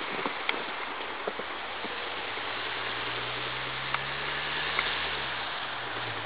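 A steady hiss with faint crunching footsteps in snow, and a low vehicle engine hum that comes in about two and a half seconds in and drops in pitch near the end.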